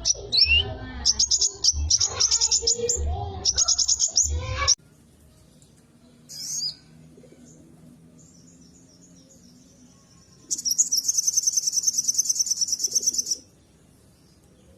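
Sunbirds calling: a burst of rapid high-pitched chirps that cuts off abruptly. After a quiet stretch with a single short chirp comes a fast, even, high trill lasting about three seconds.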